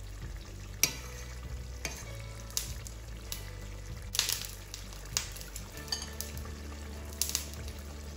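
Chicken simmering in a thick binagoongan sauce in a stainless steel pan, with sharp little pops and clicks from the bubbling sauce every second or so over a low steady hum.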